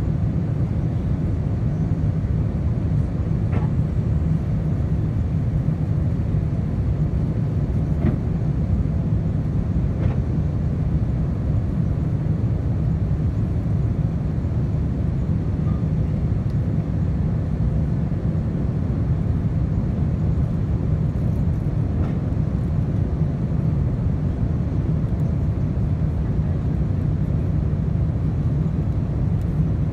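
Steady low rumble of engine and airflow noise heard inside the cabin of an Airbus A350 descending on approach, with a few faint clicks.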